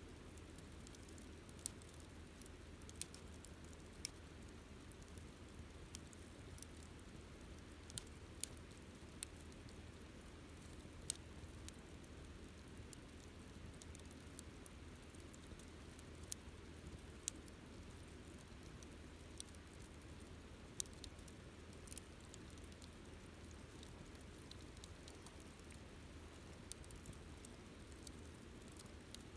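Campfire burning quietly, with irregular sharp crackles and pops from the burning wood over a faint steady low rumble.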